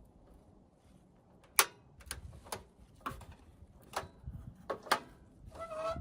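Camp stove gear being handled and set up: a string of sharp clicks and knocks, about seven from a second and a half in, then a short squeaky scrape near the end.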